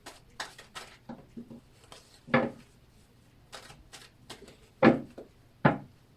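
A tarot deck being handled: a scatter of soft taps, rubs and card slaps as cards are shuffled and laid down, with louder slaps about two and a half, five and five and a half seconds in.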